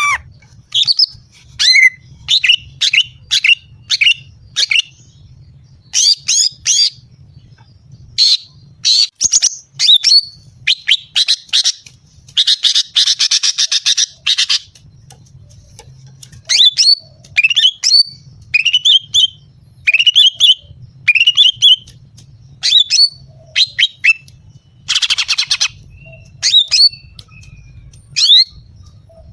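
Female greater green leafbird (cucak ijo) calling: a rapid series of short, sharp notes that sweep down in pitch, broken twice by a longer harsh, grating chatter, about midway and again near the end.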